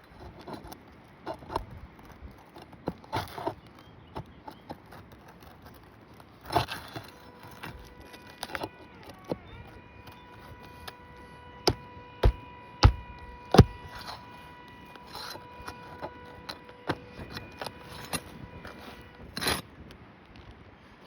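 Asphalt shingles being pried and torn loose from a roof deck: irregular scraping, crackling and clicking, with four sharp knocks in quick succession about twelve seconds in.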